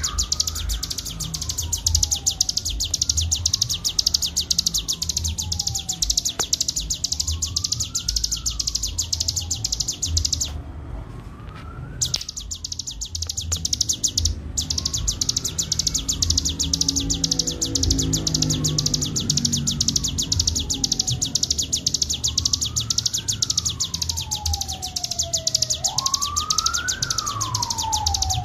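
Ciblek gunung (hill prinia) singing in the fast, continuous 'ngebren' style: a dense, high-pitched chattering run of many notes a second that breaks off briefly twice near the middle. Beneath it, a slow siren-like wail rises and falls about every four seconds.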